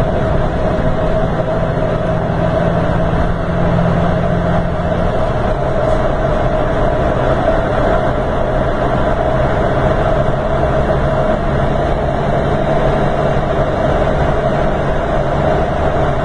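Scania K410 coach's rear-mounted diesel engine running steadily, with a steady higher tone above the engine note. The low engine note shifts about five seconds in.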